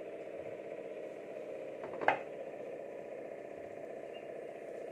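A steady low machine-like hum with a single sharp knock of kitchenware about two seconds in, as flour is spooned from a small bowl into a steel mixing bowl.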